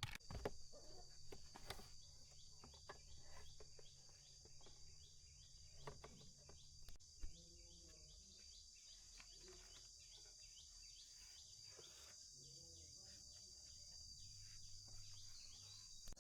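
Faint steady high-pitched chirring of insects, with scattered faint clicks and knocks.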